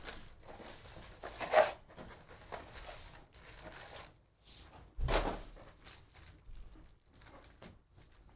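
Plastic shrink wrap crinkling and a cardboard trading-card box being torn open, then foil card packs rustling as they are handled and stacked. Two louder bursts of tearing and rustling come about a second and a half in and at about five seconds.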